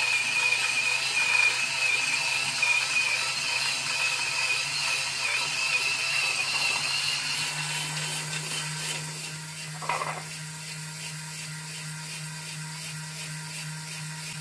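Varia VS3 electric coffee grinder with 38 mm conical burrs grinding coffee beans on a fine setting: a steady motor hum under a higher grinding whine. Past the middle the grinding noise thins and the hum steadies as the last beans clear the burrs, with one short louder sound about ten seconds in.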